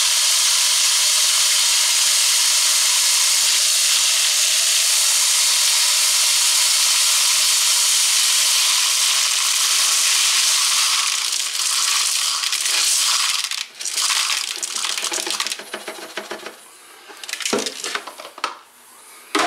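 Small lead shot pouring in a steady rushing stream into a plastic soda bottle. After about ten seconds the stream breaks up and thins to a trickle, ending in scattered pellet clicks and rattles.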